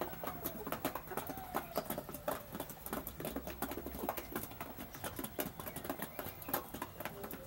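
Half-grown chickens pecking at feed: rapid, irregular clicks of beaks striking the feed, several a second, with a few soft short clucks.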